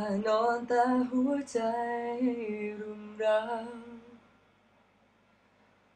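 A single voice singing a Thai pop ballad unaccompanied, in one sung phrase that stops about two-thirds of the way through, followed by a pause.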